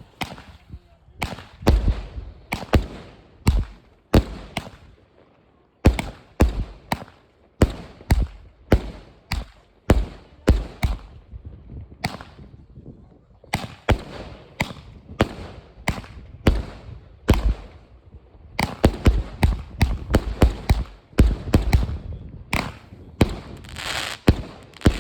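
Fireworks going off: a long, irregular run of sharp bangs, often several in quick succession, with two short lulls and a burst of crackling near the end.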